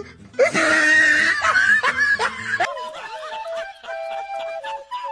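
A person laughing loudly, then about two and a half seconds in the sound cuts to a music track with a held, stepping melody.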